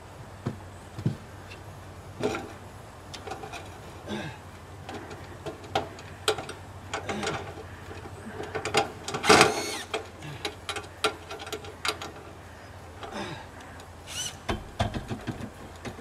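Hand work on a roof gutter at the eaves: irregular clicks, knocks and scrapes of tools and fittings against the gutter, with a louder, denser scrape about nine seconds in.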